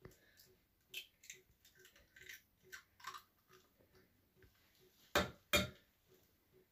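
Light taps, clicks and rustles of baking ingredients and containers being handled on a table, with two louder sharp knocks in quick succession about five seconds in. A faint, regular ticking sounds underneath throughout.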